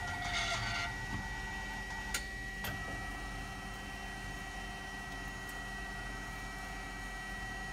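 Kia SKT-21V CNC lathe's work stocker carousel turning, with the machine's steady hum and a constant high whine. A short hiss comes in the first second and two sharp clicks a little after two seconds in.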